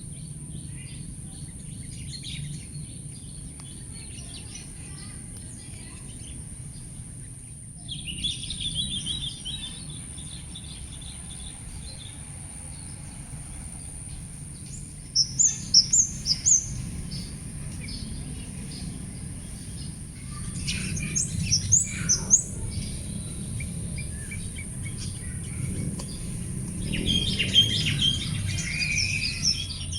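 Birds chirping and calling outdoors: chattering about a quarter of the way in, a run of four sharp high chirps about halfway through, another burst of calls a few seconds later, and more chattering near the end, over a steady high-pitched background tone.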